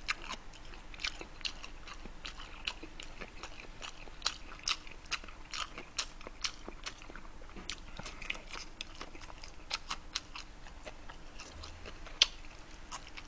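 Close-miked chewing of a mouthful of kimbap (seaweed-wrapped rice roll): soft, wet mouth clicks and smacks at an irregular pace, about one or two a second.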